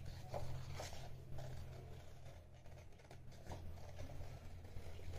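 Scissors cutting a sheet of paper: a string of short, irregularly spaced snips, with the paper rustling as it is turned, over a steady low hum.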